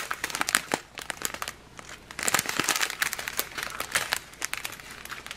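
Small clear plastic bags of round resin diamond-painting drills crinkling as they are handled and flipped through, in irregular crackly bouts, loudest from about two seconds in.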